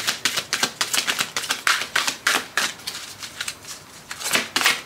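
Keepers of the Light oracle cards shuffled by hand: a rapid run of soft card slaps and clicks, several a second, easing briefly about three seconds in.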